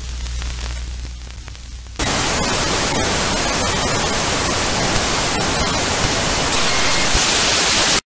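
Low electrical hum with faint crackling, then about two seconds in a loud hiss of analog television static with scattered crackles, which cuts off suddenly near the end.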